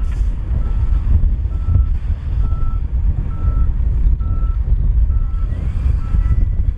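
Dump truck reversing: its backup alarm gives a short, steady beep about once a second over the loud, low rumble of its diesel engine.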